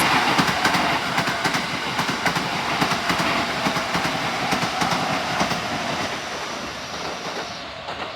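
Eight-car Keikyu electric train passing over a level crossing, its wheels clattering over the rail joints. The sound is loudest at first and fades steadily as the train moves away.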